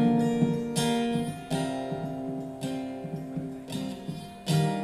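Acoustic guitar strummed without singing: a few chords, each struck and left to ring, fading between strokes.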